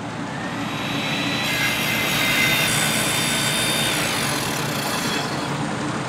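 Sound effect for an animated logo intro: a steady rushing noise that swells up over the first second, with faint high whistling tones through the middle.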